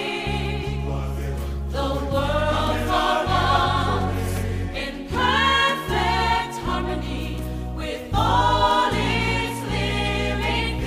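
Background music: a choir singing a slow ballad passage over sustained instrumental backing.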